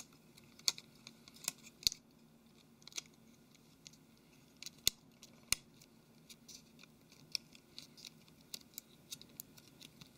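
Plastic rear casing of a Samsung Galaxy Note 3 being fitted and pressed down onto the phone by fingers: a scattered run of light clicks and scrapes, the sharpest in the first two seconds and again about five seconds in.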